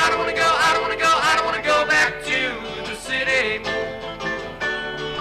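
Live country-folk band music: acoustic guitar, keyboard and a mallet instrument playing an instrumental passage, with a lead line that slides between notes.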